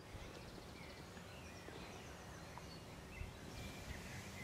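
Outdoor ambience: a faint, steady low rumble with scattered short, high bird chirps.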